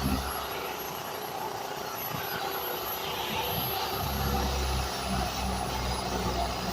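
Power sander running steadily on a fiberglass boat hull, a continuous noisy whir; its low hum drops away for the first few seconds and comes back about four seconds in.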